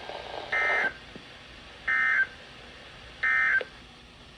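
Emergency Alert System end-of-message data tones: three short bursts of warbling two-tone digital data, about 1.3 seconds apart. They signal that the alert message is over.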